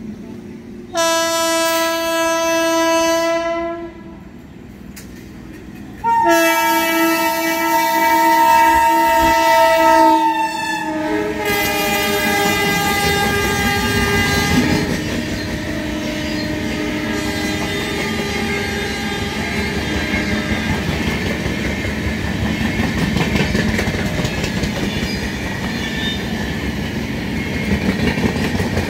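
A WAP5 electric locomotive's horn sounds two long blasts as it approaches, the second dropping in pitch as the locomotive passes. Then the express's coaches roll past with a steady rumble and clickety-clack of the wheels over the rail joints.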